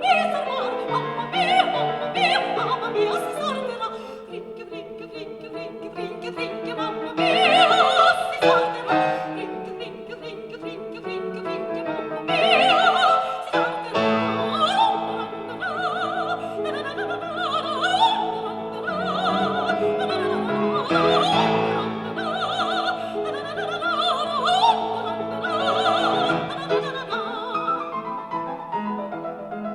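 Operatic singing with orchestral accompaniment, the voice held in wide vibrato. It is played back through a 1960s National classroom loudspeaker, a Zenhōren No. 1 type cabinet with an EAS-16P alnico 16 cm full-range driver.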